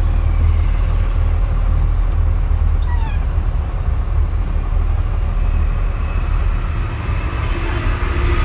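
Oil tanker truck's diesel engine running at steady road speed, heard from inside the cab as a low, even drone with road noise. About three seconds in there is a brief falling squeal.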